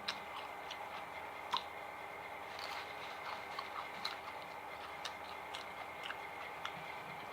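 Close-up chewing of food, with small crunchy clicks about every half second to a second and one sharper crunch about a second and a half in, over a steady faint hum.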